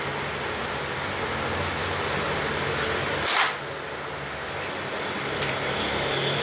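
A rubber-band gun slingshot fires a test shot: one sharp snap of the released bands about three seconds in, the first shot when sighting in its scope. A steady hum from an electric fan runs underneath.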